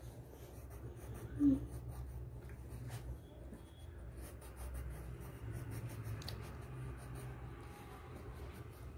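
Yellow coloured pencil scratching on paper in short back-and-forth colouring strokes, with faint ticks of the lead on the page. A brief pitched blip sounds once about a second and a half in.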